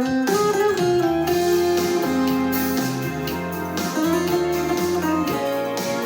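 Instrumental song introduction led by guitar, a melody of held notes over a steady accompaniment.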